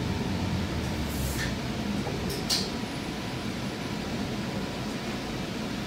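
Cabin of an Alstom Citadis Spirit light rail car pulling to a stop at a station. The low running rumble dies away in the first second or so, with two short hisses about a second apart, then a steady cabin hum as the car stands.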